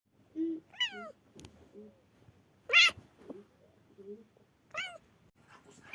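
A black kitten meowing three times, each meow falling in pitch. The middle meow is the loudest.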